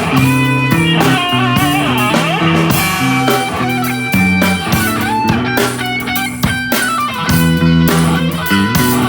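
Rock band playing an instrumental passage: electric guitar lead with some bending notes over bass guitar and drums.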